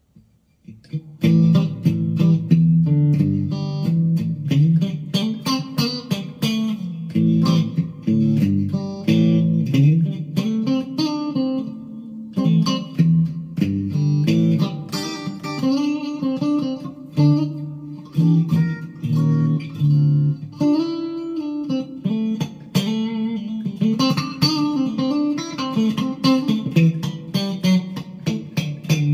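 Monoprice Indio Cali Classic Strat-copy electric guitar played through an amp on its middle-and-bridge pickup setting, starting about a second in: a bright, Fender-style quack.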